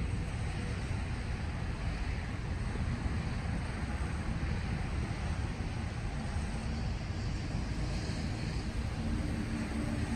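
Trailer refrigeration unit running steadily, a continuous low rumble with a mechanical hum.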